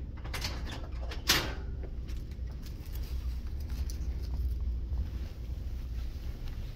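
Handling sounds at a hospital bed: a few soft rustles and one louder sharp swish or knock about a second in, over a steady low hum.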